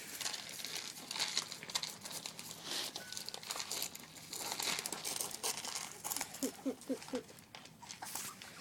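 Puppies eating: irregular crinkling, rustling and clicking as they nose and chew at their food, with four quick squeaks about six and a half seconds in.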